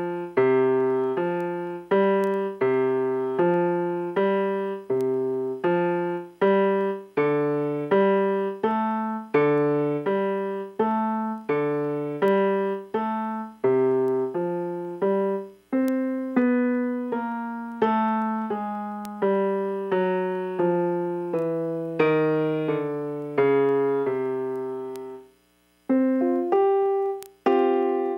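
MIDI keyboard with an electric-piano tone playing a chord progression. A new chord is struck roughly every two-thirds of a second and each rings and fades. The playing breaks off briefly near the end, then resumes.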